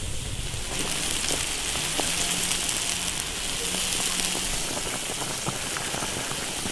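Spicy fish-bone broth boiling hard in an iron wok: a dense hiss of many small bubbling pops, which takes over from a low rumble of the wood fire under the wok about a second in.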